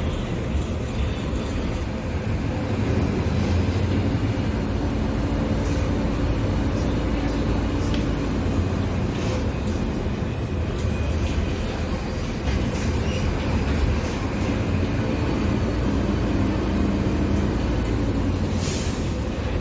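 Mercedes-Benz OF-1721 Bluetec 5 bus's diesel engine running steadily, with scattered light clicks over it.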